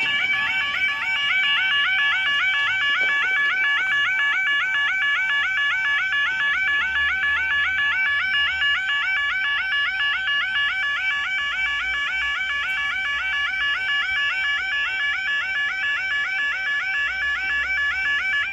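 UK level crossing warning alarm (yodalarm) sounding: a loud, fast, steady two-tone warble repeating about four or five times a second, cutting off abruptly at the very end.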